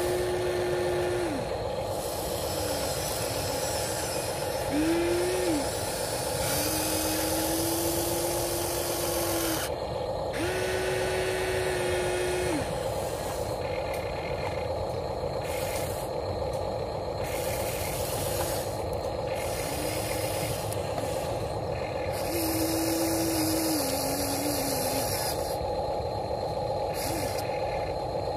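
Electric motors of a Huina 1593 RC excavator whining in several short spells as the boom, arm, bucket and swing move, each whine rising at the start and dropping away at the end, over a steady hum and hiss.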